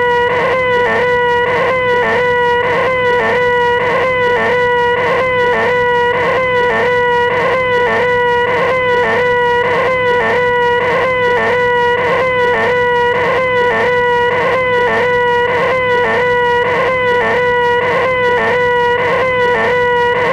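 A man's nasal, whining 'eeeehhh' voice held on one steady pitch, looped over and over, with a short regular break about two to three times a second.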